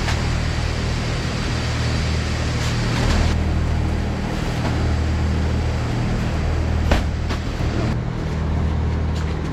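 A motor running steadily with a low hum, and a sharp knock about seven seconds in.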